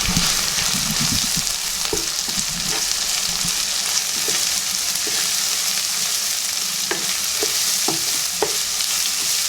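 Chopped onion sizzling in hot oil in a frying pan, with ginger, garlic and coconut pieces, as it is stirred. A spatula knocks against the pan a few times over the steady sizzle.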